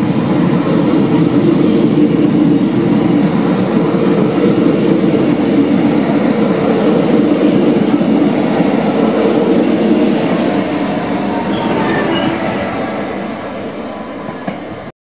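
Double-deck Renfe Cercanías electric commuter train running past along the platform, with a steady hum of motors and rolling wheels. The sound fades over the last few seconds as the train pulls clear, then cuts off suddenly.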